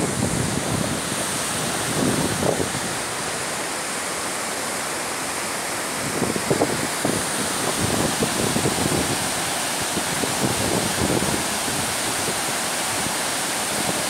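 Fast, swollen mountain river rushing over rocks and around boulders: a steady, dense whitewater rush, with irregular low buffeting of wind on the microphone.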